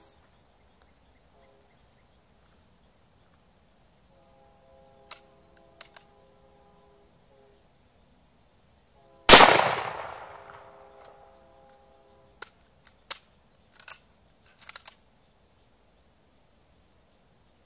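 Chunks of bowling ball bursting inside a running microwave oven: a few sharp cracks, then one loud bang about nine seconds in that dies away over a couple of seconds, followed by a string of smaller cracks and pops.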